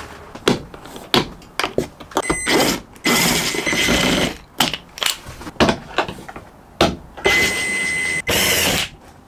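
Cordless drill/driver running in two bursts of a second or two each, backing screws out of a van's ceiling light fixture, with short clicks and knocks of handling between.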